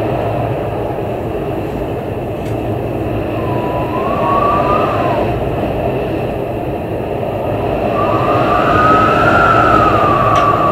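Storm-force wind gusting hard, a dense low rushing that swells twice, each gust carrying a thin howling whistle that bends up and down in pitch.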